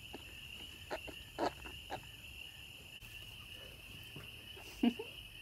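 Newborn piglet giving about four short calls, the loudest near the end, over steady insect chirring from crickets.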